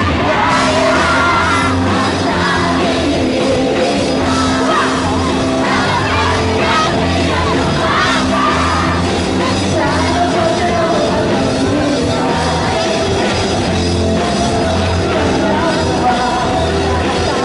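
Live rock band playing loudly through a PA: bass guitar, drums and a sung vocal line. Crowd members close by are yelling and singing along.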